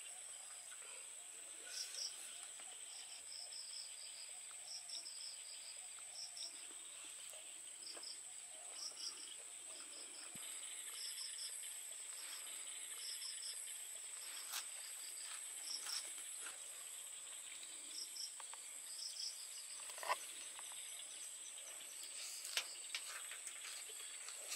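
Insects, crickets among them, keep up a steady high-pitched drone, with short high chirps repeating about once a second. A few soft clicks and rustles come from handling leafy greens and chewing.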